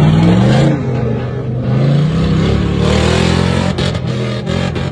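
Off-road 4x4 SUV's engine revving hard as it drives the dirt course, the pitch climbing and dropping several times with throttle changes. A few sharp clicks come near the end.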